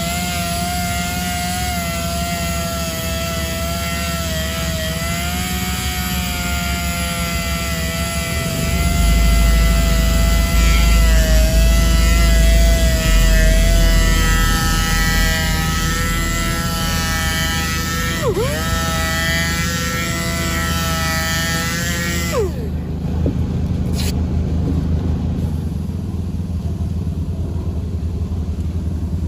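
A power sander whines steadily as it sands the wheel with 800 grit, its pitch wavering under load. It dips briefly about two-thirds of the way through, then winds down and stops about 22 seconds in. A steady low engine-like rumble runs underneath throughout.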